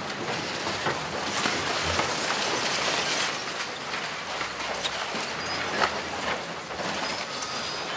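FR130.2 wheel loader working in earthquake rubble: a steady clatter and crunch of broken masonry and debris under the machine, with a sharp knock about six seconds in.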